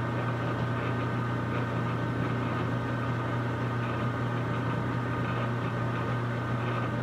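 Metal lathe running steadily at low speed (set to 70 RPM) while a small die cuts a thread on a brass rod. It makes a steady low hum with a thin higher whine over it.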